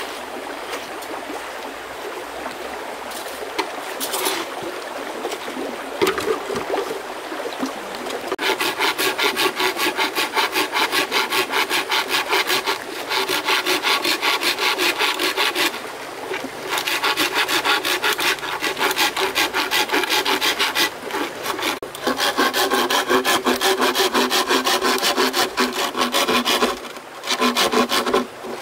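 A hand tool rasping against wood, at first a rougher, steadier scraping, then from about eight seconds in a fast, even rhythm of strokes in runs of several seconds with short pauses.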